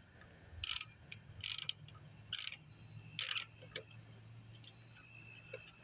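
Four short rasping strokes of a hand tool on a lawnmower engine, about one a second, as a part is worked loose during the teardown. A steady high chirping runs underneath.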